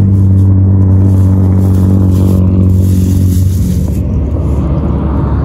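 An engine running steadily, a loud low hum whose pitch shifts slightly after about three and a half seconds.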